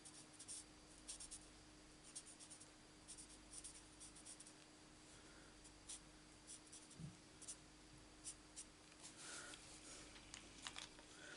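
Faint short strokes of a Stampin' Blends alcohol marker tip on cardstock, coming in quick little clusters as grass is coloured in, over a faint steady hum.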